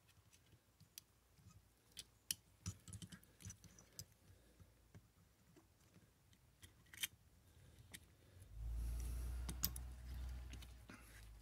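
Small metal carburetor parts clicking and ticking as they are handled and fitted: the choke linkage going onto a Nikki carburetor. Near the end a louder low rumbling rub lasts a couple of seconds.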